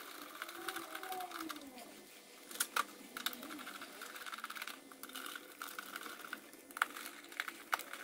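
Hand screwdriver tightening screws into the SNOO bassinet's plastic base: faint scraping, with a few sharp clicks, two together about two and a half seconds in and more near the end.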